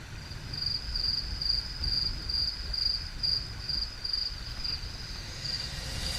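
Insect chirping in short, high, evenly repeated pulses about twice a second, fading out near the end, over a low rumble.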